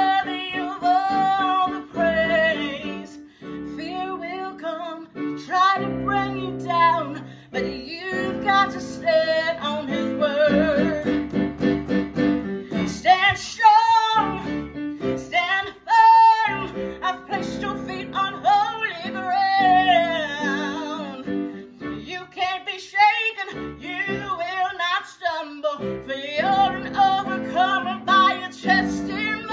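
A woman singing with a wide vibrato and long held notes, over a steady instrumental accompaniment.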